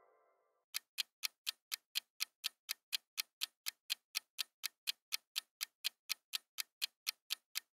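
Countdown-timer clock-tick sound effect: fast, even ticking at about four ticks a second, starting a little under a second in after a brief silence.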